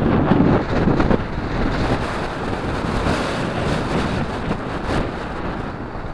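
Wind buffeting the microphone of a moving bicycle rider, a steady rushing noise with stronger gusts in the first second or so.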